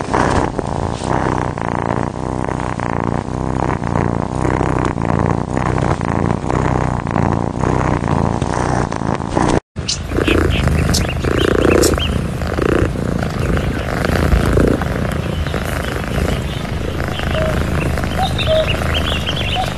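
Cats purring close to the microphone, a steady low rumble. After a sudden cut about ten seconds in, another cat purring as it is stroked.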